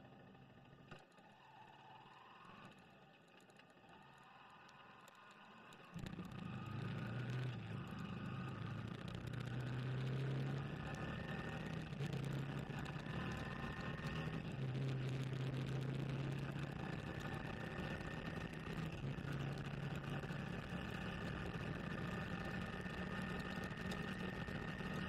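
Faint quiet for the first few seconds, then, about six seconds in, a sport motorcycle's engine cuts in suddenly while riding, with wind and road noise. The engine note steps up and down in pitch every few seconds as the bike speeds up and changes gear.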